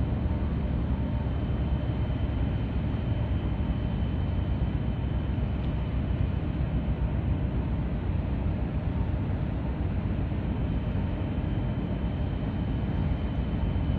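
Steady low rumble of a large container ship's engine as it moves out through the harbour, with a faint steady high whine.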